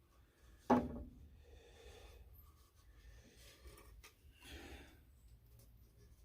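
Wooden jig pieces being handled on a workbench: a sharp knock under a second in, then quieter rubbing and shuffling of wood.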